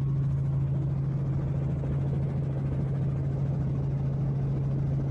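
Steady engine drone heard from inside an aircraft cabin in flight, one strong low hum with a rushing noise over it.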